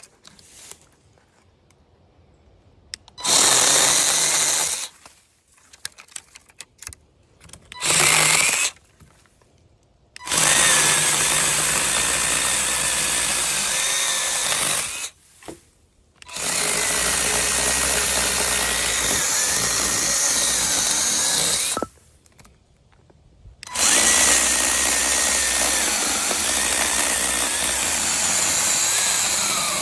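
WORKPRO 6.3-inch cordless electric mini chainsaw's motor and chain running in five separate bursts, each starting and stopping abruptly. The first two bursts are short and the last three last several seconds each, with a wavering whine.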